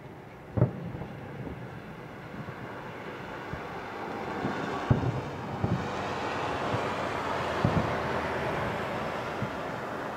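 Distant fireworks: aerial shells bursting with dull booms, the loudest about half a second in and several more after about five seconds, over a wash of crackle and hiss that builds from about five seconds in.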